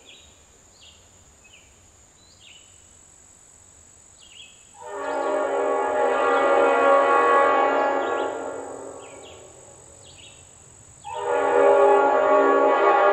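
Five-chime Leslie RS5T train horn, its bells in a 31/44 reversal, sounding two long chords: one starting about five seconds in and tapering away around nine seconds, the next cutting in sharply near eleven seconds and still sounding at the end. Short high chirps from birds or insects fill the quiet stretch before the first chord.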